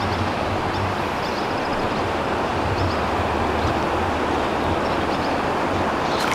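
Steady rushing outdoor noise with a low rumble underneath and faint, short high chirps now and then.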